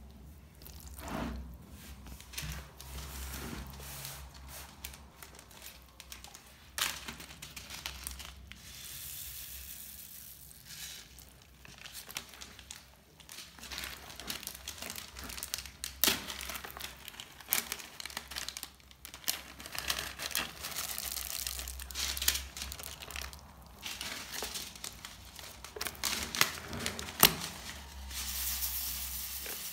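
Bead-filled crunchy slime being squeezed and kneaded by hand, crackling and popping unevenly, with now and then a sharper snap.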